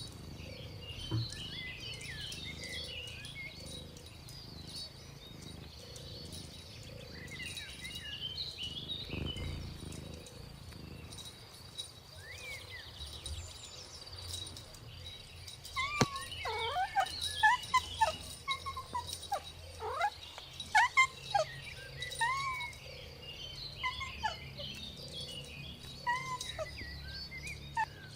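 Many short, high animal calls: scattered chirps at first, then from about halfway through a dense run of quick falling calls, the loudest part.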